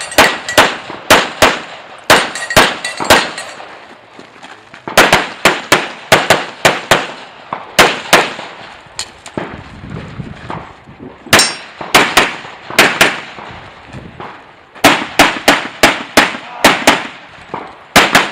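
Pistol fired in quick strings of shots during a practical pistol stage, each string several rapid shots, with pauses of one to two seconds between strings.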